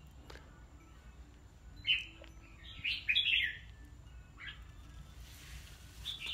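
Red-whiskered bulbuls chirping in short, bright phrases: one call about two seconds in, a louder cluster around three seconds, and a few more near the end.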